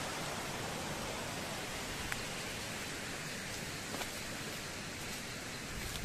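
Steady rush of running water, an even hiss with no change in level, with a few faint ticks about two and four seconds in.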